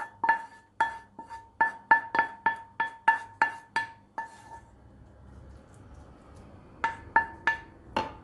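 Wooden spoon knocking and scraping against a coated frying pan while emptying sautéed vegetables out of it: a quick series of sharp taps, each with the same short ring, about three a second. After a pause of a couple of seconds, four more taps come near the end.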